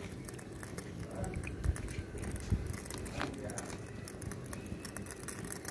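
Quiet low background rumble with two soft thumps, a little under two seconds in and again about two and a half seconds in.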